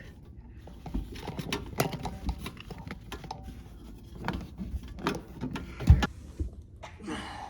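Irregular knocks, scrapes and rustling as a dishwasher's drain hose is pulled and fed through behind the machine, with a louder thump about six seconds in.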